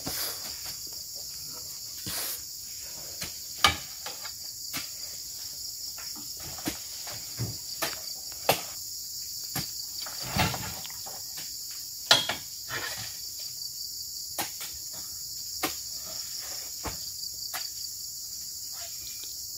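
Heavy oil palm fruit bunches thudding and knocking at irregular intervals, a dozen or so times, as they are heaved with spiked poles onto the lorry's load. Behind them runs a steady, high insect drone.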